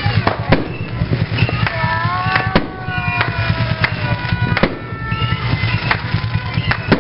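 Aerial fireworks bursting overhead: a series of sharp bangs at irregular intervals, with crackling in between.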